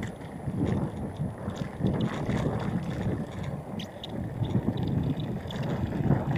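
Mountain bike rolling over a rough dirt and gravel trail: an uneven rumble of tyres on the ground with scattered rattles and clicks from the bike, and wind on the microphone.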